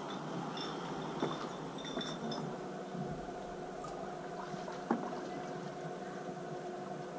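Water lapping and gurgling along a slow-moving small boat, with a faint steady motor hum that sets in about three seconds in and a couple of light knocks.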